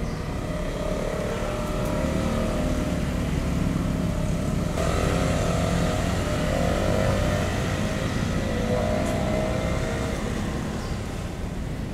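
A motor engine running steadily, with a low rumble and a wavering drone, growing somewhat louder about five seconds in.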